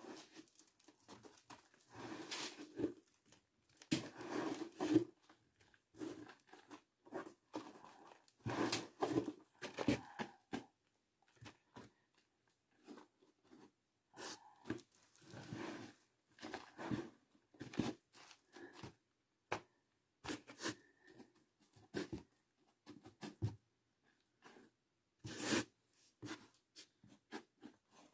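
Bare hands spreading and smoothing loose peat in a polystyrene foam box: irregular rustling, crunching strokes with a few sharper scrapes. This is the peat cover, about 2 cm deep, being pressed level over the laid blackberry mother roots.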